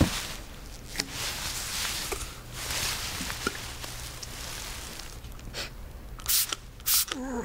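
Soft rustling with a few small sharp clicks, two louder short rustles near the end, and a brief creak just before the end.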